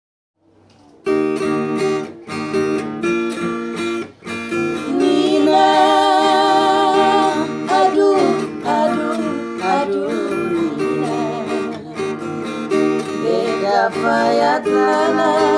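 Acoustic guitar strummed as a song's intro, starting about a second in; from about five seconds a wavering melody line rides over the chords.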